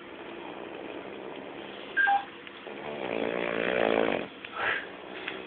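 A man snoring: one long snore that builds and peaks about four seconds in. A brief sharp sound comes about two seconds in.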